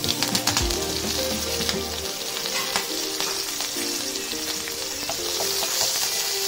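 Chopped ginger, green and dry red chillies and curry leaves sizzling in hot oil in a wok, a steady hiss with scattered spitting pops that starts as they go in, then stirred with a wooden spatula near the end. Light background music runs underneath.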